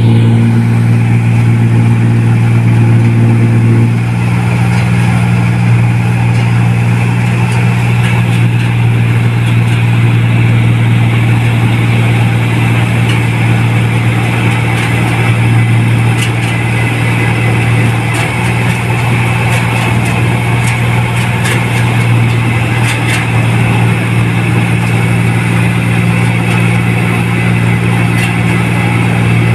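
New Holland 1545 combine harvester running steadily as it harvests rice: a loud, even engine hum with the machine's workings. The tone thins slightly about four seconds in and fills out again near the end, with a few faint clicks partway through.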